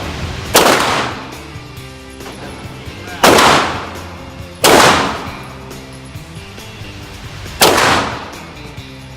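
Beretta M9A3 9mm pistol fired four times at uneven intervals, each shot sharp and loud with about a second of echoing decay.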